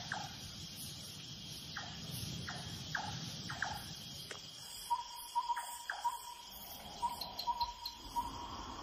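Rainforest night chorus: insects drone high and steady, short falling chirps repeat through the first half, and from about five seconds in a pulsing call holds at one pitch.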